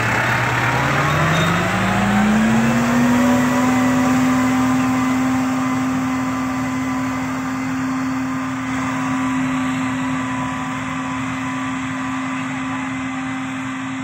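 Farm tractor engine revving up over about two seconds, then running steadily at working speed as it pulls a spring-tine cultivator through the soil. It grows slightly fainter toward the end as the tractor moves away.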